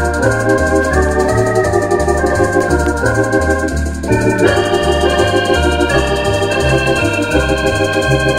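Lowrey Contempo 80 electronic organ playing an instrumental: a bass line stepping about twice a second under held chords and a melody, with a brighter upper voice joining about four seconds in.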